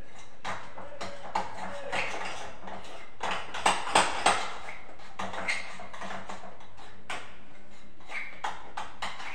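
A utensil stirring and scraping in a bowl, clinking against its side, as green colour is mixed into cream. There are three sharper clinks in quick succession about four seconds in.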